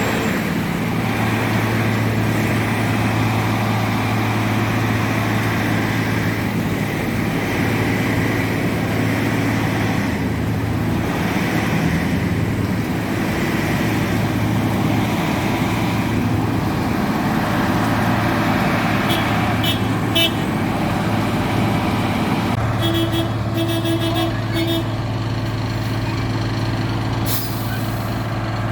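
Wirtgen W2000 cold milling machine at work: a loud, steady heavy diesel drone with a constant low hum. In the last third a few short repeated beeps sound over it.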